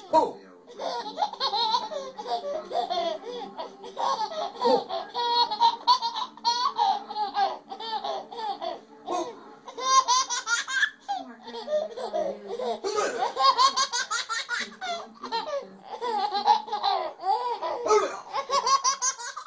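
A baby laughing, in bout after bout of laughter.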